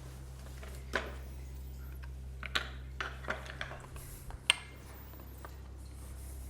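Scattered small clicks, taps and rubbing as a person shifts on a padded treatment couch, with the sharpest click a little past the middle, over a steady low hum.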